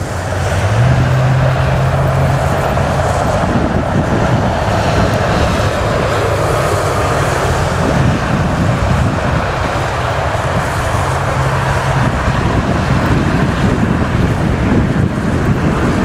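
Interstate highway traffic passing steadily, with wind buffeting the microphone. A low engine drone swells about a second in and again near the two-thirds mark.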